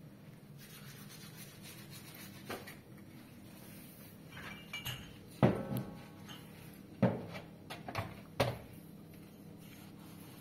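Tableware clinking and knocking as it is handled and set down: several sharp knocks, the loudest about halfway through, some ringing briefly.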